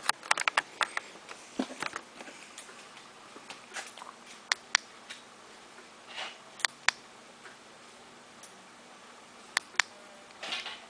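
Small plastic buttons clicking: a quick run of clicks at the start, then clicks mostly in pairs a moment apart, as the remote control for the LED flasher is pressed through its modes, with brief rustles of handling.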